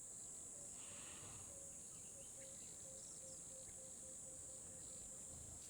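Faint, steady high-pitched chirring of crickets, with a fainter low note pulsing about three times a second through the middle.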